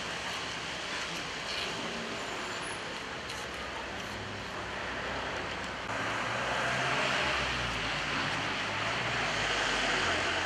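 Street traffic noise with a motor vehicle engine running, getting louder about six seconds in.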